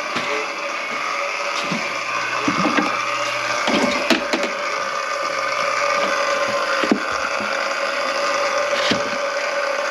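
Motorised drain-cleaning machine running steadily in a blocked kitchen sink drain, with a held hum and scattered knocks and rattles from the cable, strongest between about two and a half and four and a half seconds in.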